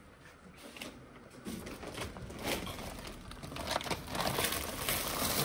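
A plastic shopping bag rustling and crinkling as a hand rummages inside it, in irregular crackles that start about a second and a half in and get louder toward the end.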